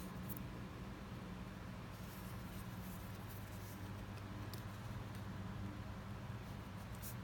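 Faint rustles and small ticks of fingers handling monofilament fishing line and a small hook while tying a knot, over a steady low hum.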